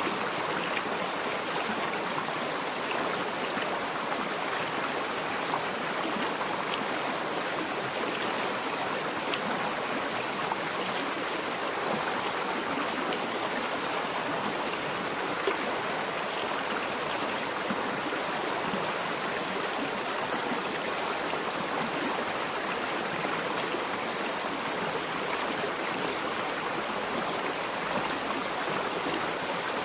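Forest river flowing steadily over rocks, a constant rushing babble with small splashes now and then.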